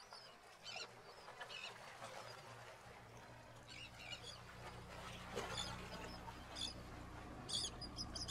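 A small bird chirping, short high calls repeating roughly once a second over faint outdoor ambience. A low steady hum comes in about three seconds in.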